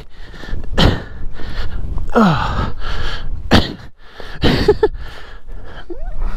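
A dirt-bike rider winded after a crash in the snow, gasping and breathing hard with short grunts, among crunching of snow. No engine is heard running.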